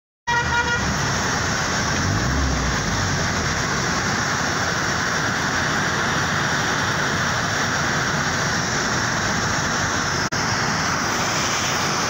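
Steady rush of a white-water mountain torrent tumbling over boulders and logs.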